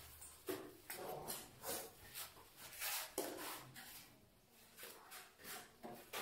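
Irregular scrapes and soft knocks of tile-setting work: a trowel scooping mortar and dabs of mortar being dropped onto a bare concrete floor.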